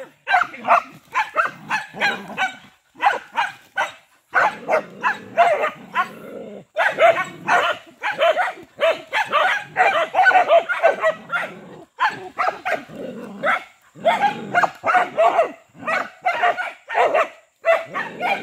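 A pack of dogs barking at a python, in quick overlapping runs of barks with only brief lulls.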